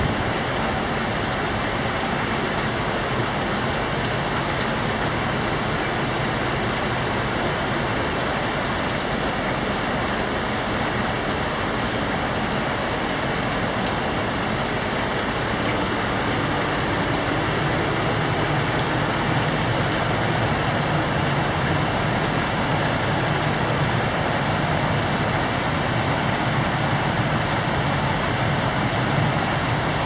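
Steady rush of a mountain river running over rocks: the headwaters of the Mogami River flowing beside an open-air rock hot-spring bath.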